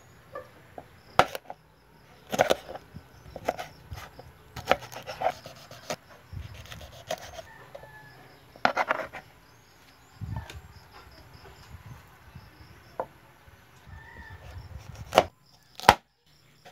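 Kitchen knife slicing okra on a plastic cutting board: sharp, irregular knocks of the blade striking the board, roughly ten strokes with pauses between them.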